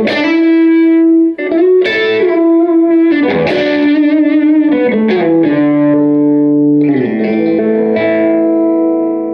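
James Tyler Variax JTV-69 electric guitar played through a Line 6 Spider Valve MKII on its Crunch Blue amp model, modelled on a 2005 Orange AD30TC, giving a crunchy overdriven tone. A lead phrase of held notes with vibrato and a few slides, with a short break about a second and a half in.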